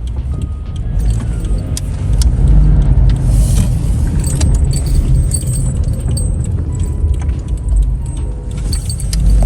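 Motorcycle riding: steady low rumble of wind buffeting the microphone over the engine and road noise, with scattered small rattles and clicks.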